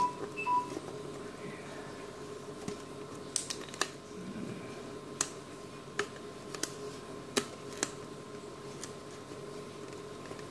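Thin plastic mineral-water bottle clicking and crackling now and then as it is handled and turned in the hand while a cutting line is marked on it. Two short squeaks come right at the start, and a faint steady hum runs underneath.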